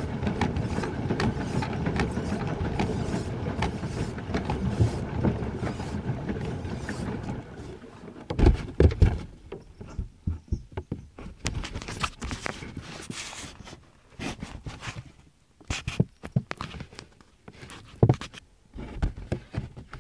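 Pedal boat being pedalled, its paddle wheel churning and splashing the water in a dense steady patter that stops about seven seconds in. After that come scattered sharp knocks and clatter against the plastic hull, loudest a little after the stop and again near the end.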